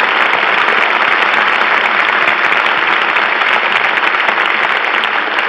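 Studio audience applauding steadily, a dense patter of many hands clapping, on a 1937 radio broadcast recording.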